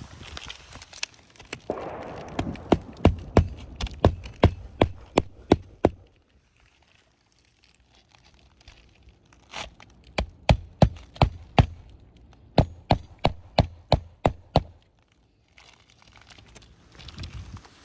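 Hammer blows on a shingle roof, in three quick runs of about three strikes a second, with a short scraping rustle just before the first run.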